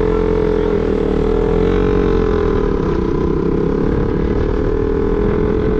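Motorcycle engine running at steady revs while riding, its pitch wavering only slightly, over the rush of wind on the microphone.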